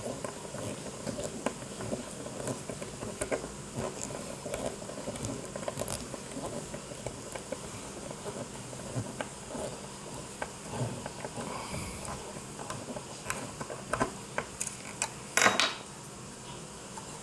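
Hand screwdriver turning the screw of a metal sink mounting clip, making light metallic clicks and scrapes throughout. A louder clatter comes near the end.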